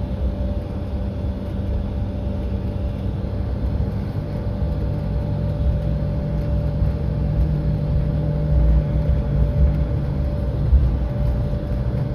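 Cabin noise of a jet airliner on the ground: a steady engine hum with a constant tone over a low rumble, growing a little louder in the second half with a few brief bumps.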